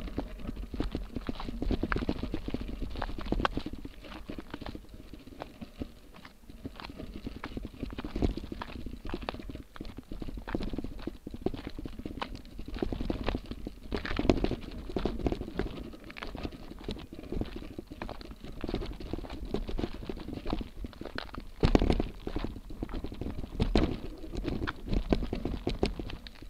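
Motobecane Fantom Cross gravel bike rattling and clattering over rock ledge and loose gravel, with tyre crunch and a dense, irregular run of knocks as the bike and its seatpost-mounted camera are jolted. One harder knock comes about three-quarters of the way through.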